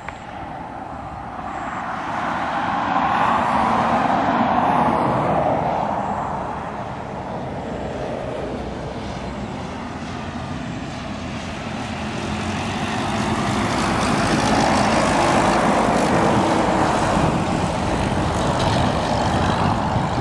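Single-engine high-wing light aircraft's piston engine and propeller droning as it flies in low and passes overhead, swelling a few seconds in, easing off, then swelling louder again as it goes by.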